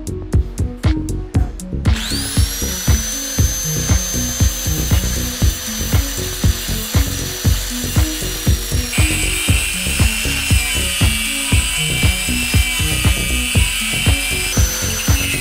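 Electronic music with a steady beat, and from about two seconds in a power tool running under it with a high whine that changes pitch about halfway through.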